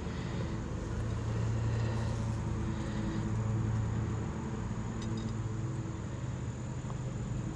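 Honeybees buzzing around the opened hive, a steady hum with overlapping pitches that drift up and down.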